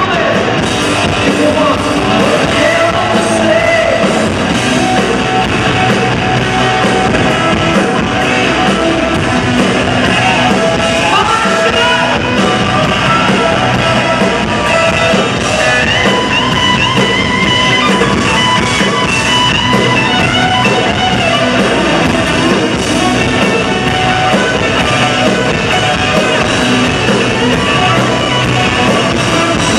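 Live hard rock band at full volume: distorted electric guitar through Marshall stacks over drums and bass, with a male lead singer. Lead guitar lines are played on a V-shaped electric guitar.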